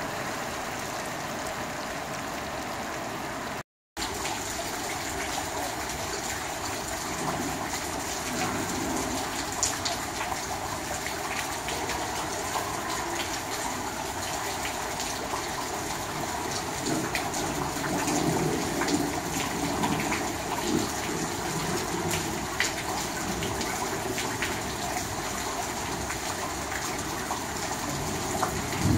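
Heavy rain falling into standing water on the ground: a steady hiss of rain with many separate drops splashing. It cuts out completely for a moment about four seconds in, and gets louder, with more distinct splashes, in the second half.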